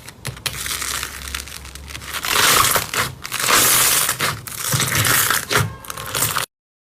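Slime being squeezed and pressed by hand, a dense crackling and crunching, loudest in the middle stretch, cutting off abruptly near the end.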